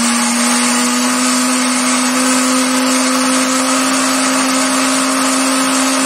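Kitchen blender running steadily at speed, grinding dried chimichurri herbs into a powder; a steady motor whine whose pitch creeps up slightly.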